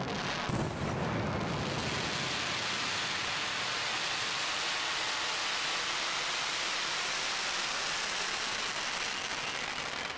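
Fireworks display: a couple of booms in the first second, then a dense, steady crackling hiss, like many crackling stars bursting at once.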